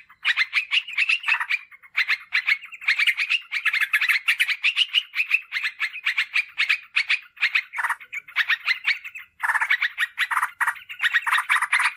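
Yellow-vented bulbul (trucukan) calling in fast, dense runs of repeated notes, with brief pauses about two and a half seconds in and again past nine seconds. It is a lure call meant to draw wild bulbuls in.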